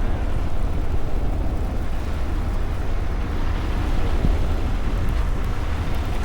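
Steady low rumble of wind buffeting the microphone, over a haze of city street noise.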